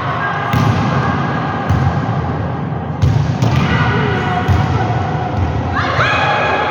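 Repeated thuds of a volleyball being struck and bouncing on a gym floor, with voices mixed in.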